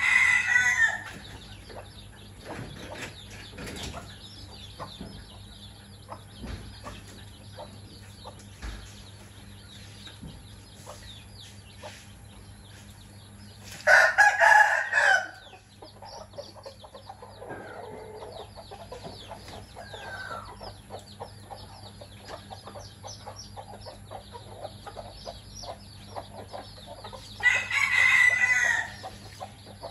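A rooster crowing three times, roughly fourteen seconds apart, each crow about a second and a half long. Between the crows, chicks cheep softly and a hen clucks now and then.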